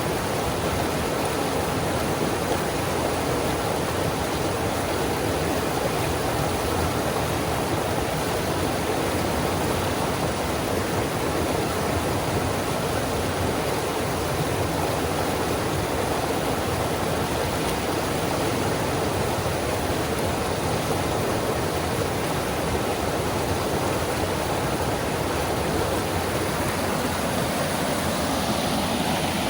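Rapids of the North Fork Skokomish River rushing steadily: a continuous, even sound of white water.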